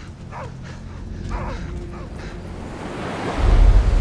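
Sea waves surging and breaking at the foot of a cliff, swelling into a loud crash about three seconds in. In the first two seconds there are a few short, faint cries.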